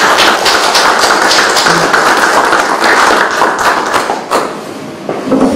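A small group clapping their hands in applause. The clapping fades out about four and a half seconds in.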